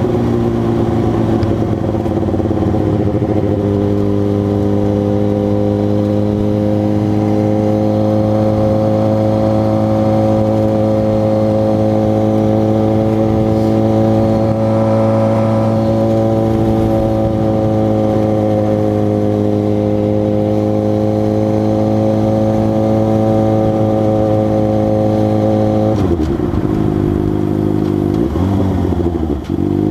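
2006 Suzuki GSX-R600's inline-four engine running at steady cruising revs. Near the end the revs drop sharply and dip twice as the bike slows through the gears.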